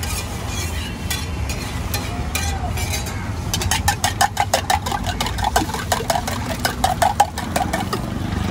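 Eggs being beaten in a steel tumbler with a metal spatula: rapid metallic clinking, about seven strokes a second, starting a few seconds in and lasting about four seconds, over a low traffic rumble.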